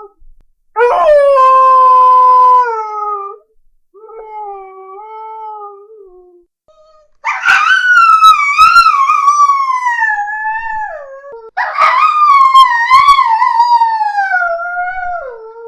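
A dog howling in four long drawn-out cries. The first two are shorter and steadier, and the second is fainter. The last two are long and loud, wavering as they slide down in pitch.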